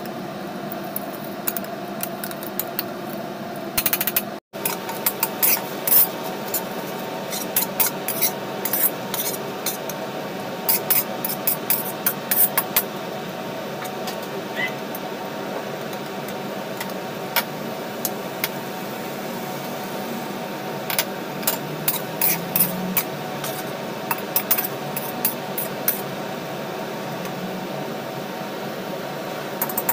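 A metal spatula clinks and scrapes irregularly against a wok as sliced pork and sweet corn are stir-fried, over steady background noise. The clicking starts after a short break about four and a half seconds in.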